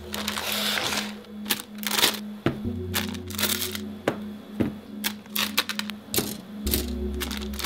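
Scissors snipping open the clear plastic bags of plastic model-kit runners, with the bag film crinkling and crackling and hard plastic sprues clicking against each other in a series of sharp, irregular snips and rustles. Soft background music with a steady low line plays underneath.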